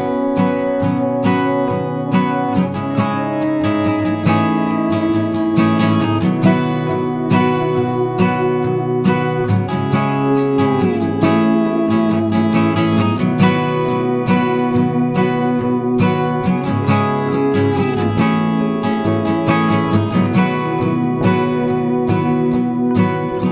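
Background music: acoustic guitar strumming and picking with a steady beat, with sliding notes now and then.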